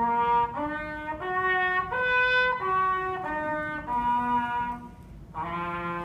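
A garden hose played as a horn, blown at one end with a funnel as its bell: a brisk bugle-like tune of separate, clear notes stepping up and down, each about half a second long, with a short break near five seconds in before it goes on.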